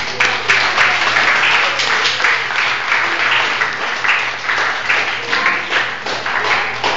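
Loud applause from a crowd of many people clapping, with individual sharp hand claps standing out.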